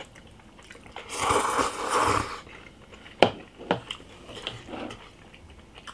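A person slurping kimchi udon noodles: two long slurps about a second in, followed by a few sharp clicks.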